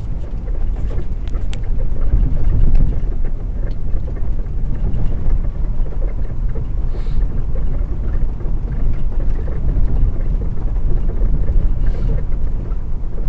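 Steady low rumble of a truck driving slowly on an icy, snow-covered road, engine and tyre noise heard from inside the cab, with a few faint clicks about a second in.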